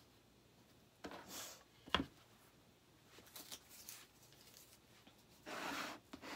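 Handling noises on a cutting mat: a few short rustling scrapes and one sharp tap about two seconds in, the loudest sound, as masking tape is handled and a painted wooden egg cutout is slid across the mat near the end.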